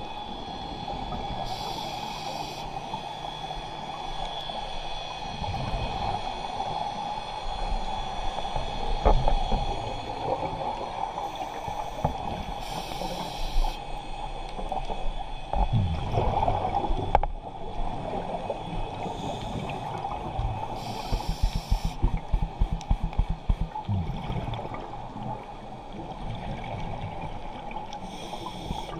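Scuba diver's regulator breathing underwater: four bubbly exhalation bursts, roughly eight to ten seconds apart, over a steady underwater hiss and rumble with occasional low gurgles.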